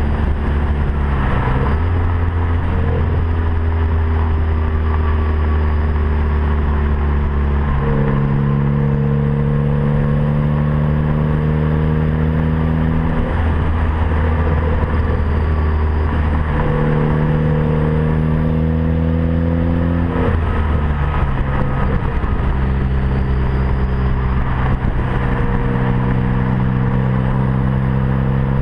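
Turbocharged Ford Focus ST with a catless 3-inch downpipe driving under power through the gears, its engine note dropping and picking up again at each shift. A high turbo whistle rises three times as the stock turbo spools on the pulls.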